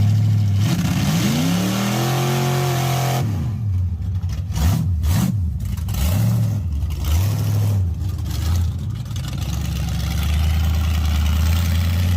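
1982 Camaro's 454 big-block Chevy V8 running: the revs climb about a second in, rise and fall several times, then settle into a steady run.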